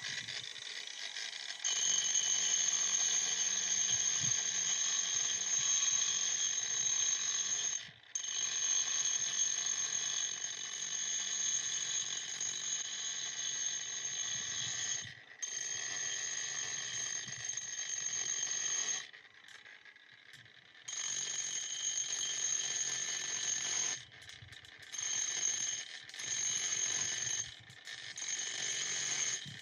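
Angle grinder with a sanding pad abrading a slate slab: a steady high whine over grinding noise. It cuts out abruptly several times, once for about two seconds about two-thirds of the way through, then in quick short breaks near the end.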